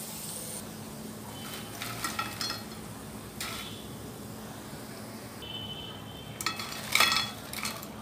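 Hot oil sizzling briefly as deep-fried rice murkul are lifted from a wok, then a metal skimmer clinking and scraping against cookware in a few short clusters, loudest about seven seconds in.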